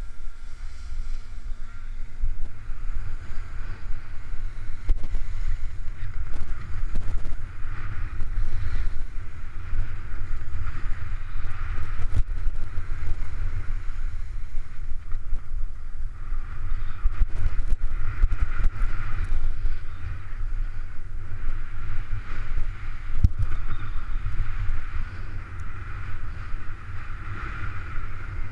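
Wind buffeting a head-mounted action camera's microphone in a steady rumble, over the hiss and scrape of edges sliding on packed snow that swells and fades through the turns, with occasional small clicks.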